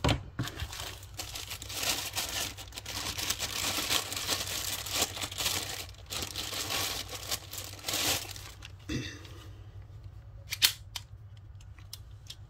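Clear plastic bag crinkling and rustling as a pistol is unwrapped from it, dense for the first eight or nine seconds. After that the handling is quieter, with a few light clicks near the end.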